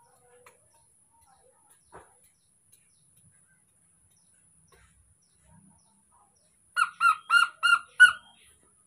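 Five short, high-pitched animal calls in quick succession near the end, after a few quiet seconds with one faint tap.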